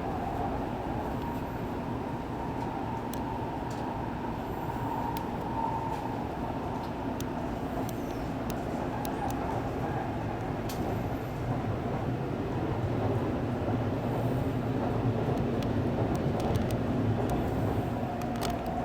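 Running noise of an N700-series Shinkansen heard inside the passenger car: a steady low rumble and rush of wheels and air, with a faint steady whine and scattered small clicks and ticks.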